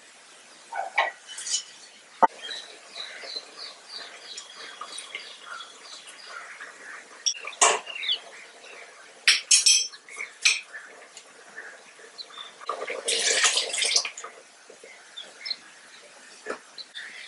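A spatula scraping and knocking against a frying pan and a stainless steel cooking pot: scattered sharp clinks and short scrapes, with a longer scrape about thirteen seconds in.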